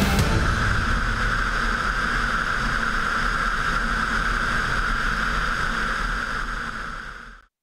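Steady rush of airflow over a camera mounted on a glider in flight, with a high whistle running through it. It fades out near the end.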